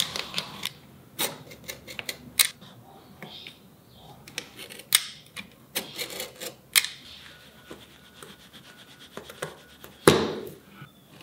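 Hand woodworking tools on a beech block: metal tools clicking and tapping against the wood and a utility knife scraping as it scores layout lines along a steel rule. One loud knock near the end, as chisel work on the slot begins.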